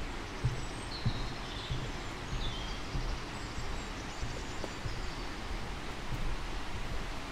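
Footsteps of a walker on an old road surface, soft thumps about every half second to second, with small birds chirping in short high calls over a steady outdoor background hiss.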